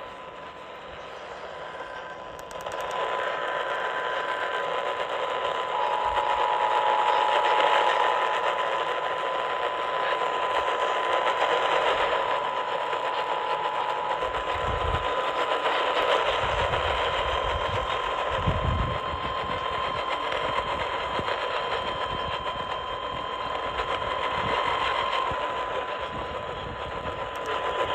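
Radio static from a receiver tuned to a weak or noisy AM signal: a steady hiss and buzz with thin whistling tones, getting louder about two and a half seconds in. A few dull low thumps fall in the middle.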